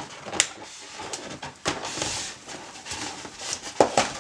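Hands tying a ribbon around the neck of an inflated latex balloon: rubber rubbing and ribbon rustling, with a few sharp snaps, the loudest near the start and near the end.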